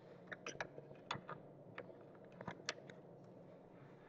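About a dozen light, sharp clicks and taps, irregularly spaced, over a quiet room background.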